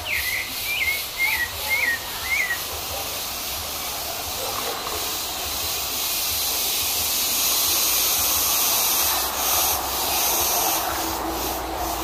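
Pale-breasted thrush (sabiá-barranco) singing a short run of about five quick, clear notes, each dipping and then rising, over the first two and a half seconds. After that, only a steady high hiss.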